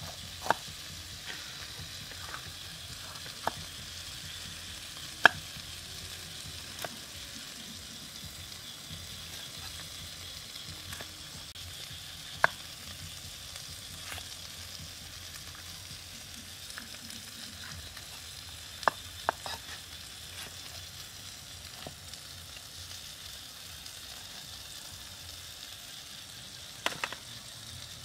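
A knife knocking sharply on a wooden chopping block every few seconds as a bell pepper is sliced, over a steady sizzling hiss from chicken cooking on a hot rock over a fire.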